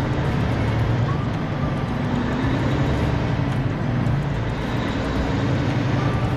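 Semi truck's diesel engine running with a steady low rumble, heard from inside the cab as the truck drives through a yard, with road noise over it.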